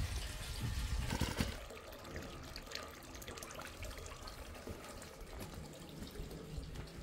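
Water running and trickling, heavier for about the first second and a half, then quieter with scattered drips.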